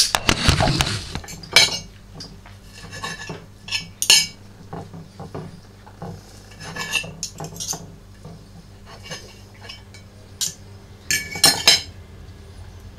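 A metal fork clinking and scraping against a ceramic plate while cooked chicken is cut up on it, in irregular bursts. The loudest clatter comes right at the start, with further clusters about 1.5 s, 4 s, 7 s and 11 s in.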